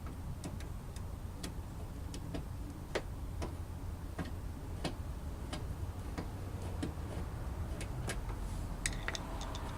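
Irregular light clicks and taps of a screwdriver working a stuck screw in the fender flare of a Honda Civic, with a quick run of clicks near the end.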